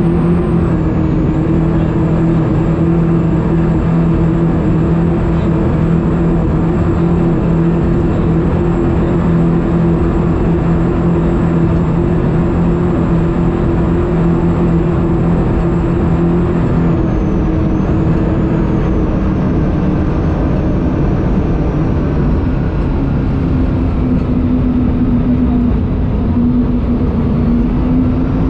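Twin Mercury Racing 1550 V8 engines with M8 sterndrives running hard at speed, heard from on board as a loud, steady engine note over rushing water. About two-thirds of the way through, the engine note shifts a little lower.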